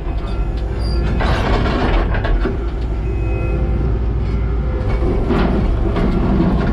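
Kubota SVL90-2 compact track loader running under load, with several clanks and scrapes as the tooth bucket works concrete slabs.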